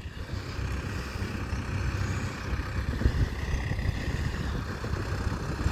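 Two Mahindra tractors' diesel engines, a 575 DI XP Plus and a 585 DI XP Plus, running together at about 1000 RPM in low gear as they drive forward. The steady engine rumble grows a little louder over the first couple of seconds as the tractors approach.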